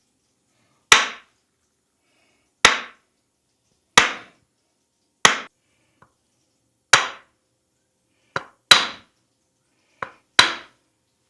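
Sharp hand slaps of a percussive head massage: seven loud strikes spaced one to two seconds apart. The last two each have a lighter slap just before them, and there is silence between strikes.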